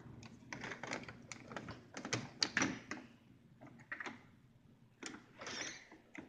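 Front door's lever handle and latch clicking and rattling as the door is unlatched and swung open: a quick run of sharp clicks and knocks, then a few more.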